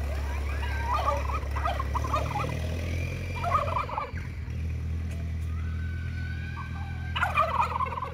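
Domestic tom turkeys gobbling in short rattling bursts, about four times, the last one near the end, over the steady low running of a small farm tractor's engine.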